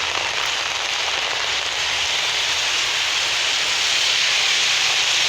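Steady hiss of falling rain, growing slightly louder toward the end.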